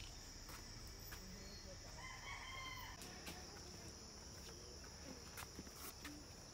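Steady high-pitched drone of forest insects, with a single crowing call lasting about a second, about two seconds in.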